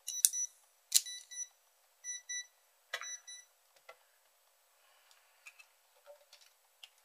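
Electronic beeps from a Philips RQ1290 electric shaver, a few short high tones including a quick double beep about two seconds in, mixed with sharp plastic clicks as the reassembled shaver is handled.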